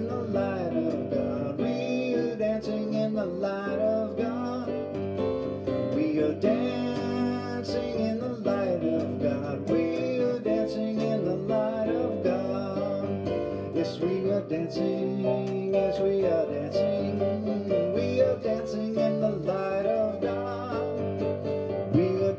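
Worship music played on an electronic keyboard: full sustained chords under a moving melody.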